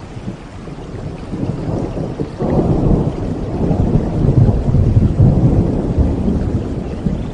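Thunder rumbling over steady rain. A louder roll breaks in suddenly about two and a half seconds in, builds for a few seconds, then eases.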